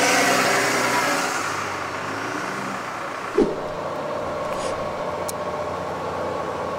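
Bus engine running, heard from inside the bus. A loud rushing noise at first eases off over the first two seconds, a brief sharp sound comes about three and a half seconds in, and then a steady drone goes on.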